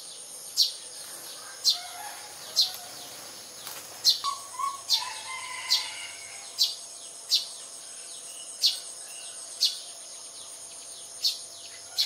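Sparrows chirping: short, falling chirps about once a second, with a few lower notes about four to six seconds in, over a steady high insect buzz.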